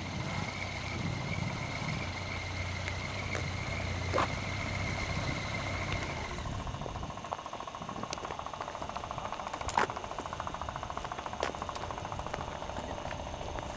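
Powered hang glider trike's converted automobile engine running at low speed. A steady high whine cuts off about six seconds in, then there is an even, fast pulsing with a few sharp clicks.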